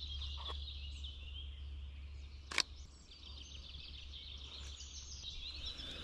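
Several small songbirds singing at once, a busy chorus of high twitters and trills. A single sharp click sounds about two and a half seconds in.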